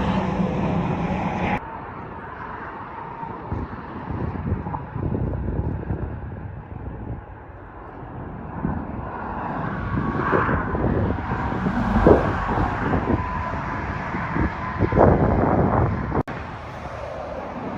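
Road traffic and wind noise in an outdoor recording. The sound changes abruptly about a second and a half in, after which a low rumble rises and falls, with a few louder swells.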